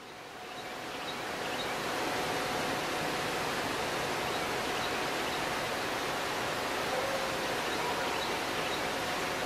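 Steady rushing of creek water, fading in over the first two seconds and then holding level.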